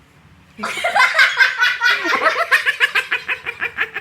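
Loud laughter bursting out about half a second in and running on in rapid, even ha-ha pulses.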